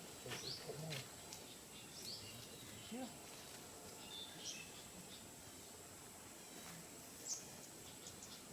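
Quiet outdoor ambience with a few short, high bird chirps scattered through it and a steady thin high-pitched tone underneath. A faint voice is heard briefly near the start and about three seconds in.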